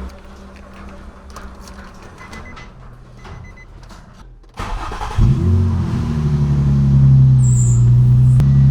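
Nissan 350Z's 3.5-litre V6 cranked by the starter about four and a half seconds in, catching within a second and settling into a steady idle. This is the start-up that tests whether the car still overheats after a radiator fan motor replacement. A few faint clicks come before it.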